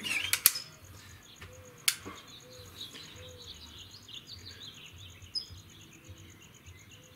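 Sharp clicks from a spring-piston underlever air rifle being handled, a couple in the first half-second and one about two seconds in, over songbirds chirping and a steady pulsing insect buzz.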